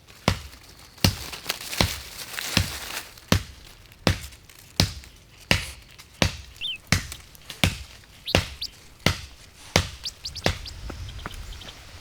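Steady chopping on wood with a hand tool, a sharp blow roughly every three-quarters of a second. A bird chirps briefly twice, once about halfway through.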